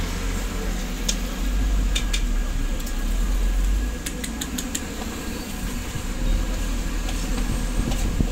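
Street background noise: a steady low traffic rumble that swells and eases, with a few light sharp clicks scattered through it.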